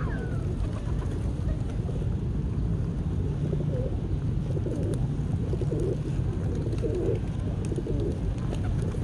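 Pigeons cooing, a run of soft low coos through the second half, over a steady low rumble. A short bird chirp sounds right at the start.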